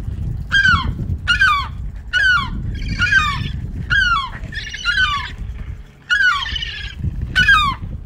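A seagull giving a rapid series of short alarm calls, about two a second, each call sliding down in pitch, as it swoops overhead to warn an intruder away from its chick.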